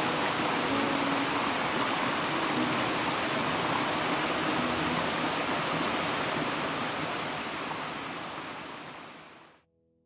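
Steady rush of a mountain stream's flowing water, fading out over the last couple of seconds and then cutting off to silence.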